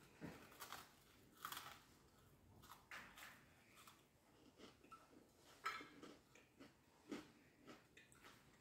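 A person biting and chewing crunchy food: faint, irregular crunches, one a little louder just past halfway.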